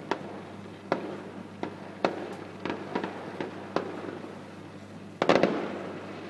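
Fireworks exploding: a string of sharp bangs, one about every half second to a second, then a louder cluster of bangs about five seconds in that trails off in echo.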